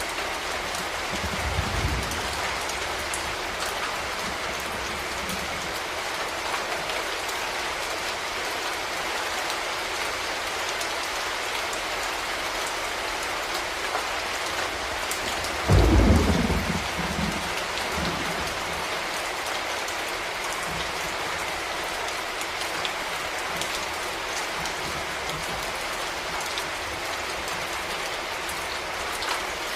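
Steady rain falling as an even hiss, with a loud rumble of thunder about halfway through that fades over a couple of seconds, and a fainter low rumble near the start.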